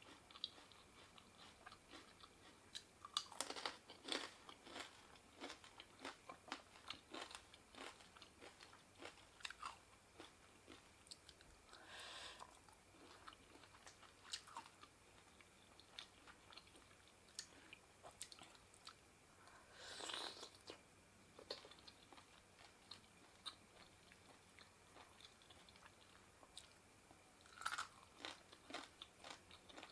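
Close-up eating sounds of someone chewing and crunching spicy seafood papaya salad: many small wet clicks and crunches, with louder bites about three seconds in, around the middle, and near the end.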